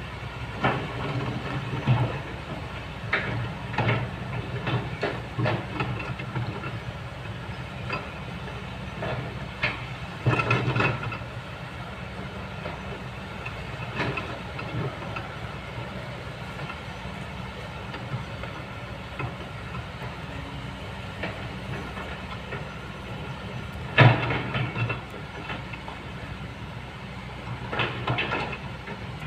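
Kobelco excavator's diesel engine running steadily while its bucket scrapes and knocks among river stones, giving irregular clanks and rattles of rock. The loudest knocks come about ten seconds in and, sharpest of all, late on.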